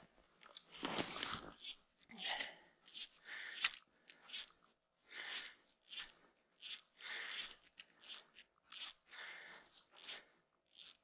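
Packed snow crunching underfoot: a quick series of short crunches, about one or two a second.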